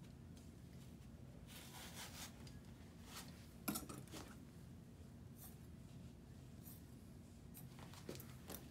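Faint rasping of athletic tape being peeled off the roll and smoothed onto an ankle, in short scattered strokes, with one sharp click of the metal scissors being handled nearly four seconds in.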